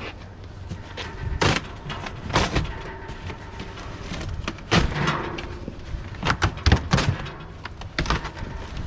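Cardboard shipping box being pulled open and its packed contents handled: several irregular knocks and thuds with rustling and scraping between, a cluster of sharp knocks near the end.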